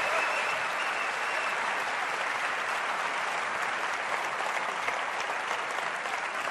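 A large audience applauding: a dense, even wash of many hands clapping that slowly fades.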